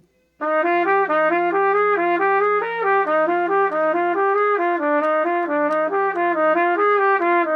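Trumpet playing a quick phrase of short notes in its middle register, starting about half a second in and ending on a held note. It is played with an open, relaxed posture, for a fuller, more resonant tone than with the chest collapsed forward.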